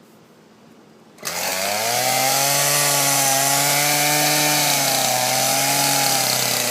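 Two-stroke chainsaw engine cutting in suddenly about a second in and running at high speed, its pitch rising briefly and then holding fairly steady.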